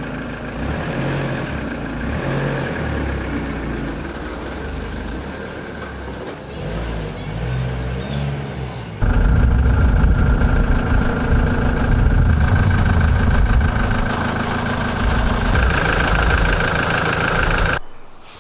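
Ford Transit recovery truck's engine running steadily, a dense low rumble. About nine seconds in it jumps much louder and closer, then drops away just before the end.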